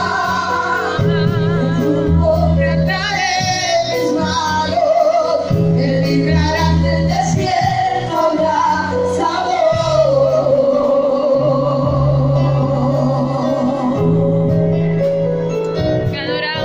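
Worship song sung live into microphones and amplified through loudspeakers: voices with vibrato over long held low accompaniment chords.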